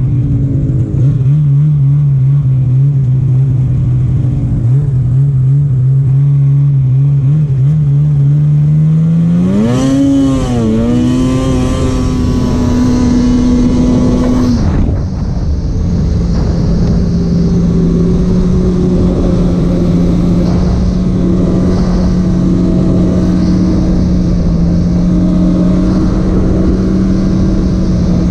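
Polaris Patriot 850 two-stroke snowmobile engine running at a steady pace, then revving up sharply about ten seconds in. It holds the higher revs for a few seconds, then drops back and runs steadily at a middle pitch.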